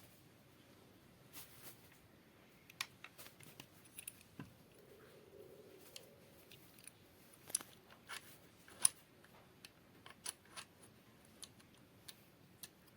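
Irregular light clicks and knocks of a tripod quick release plate being handled and fitted onto the tripod head, plastic and metal parts tapping together, the sharpest click about nine seconds in.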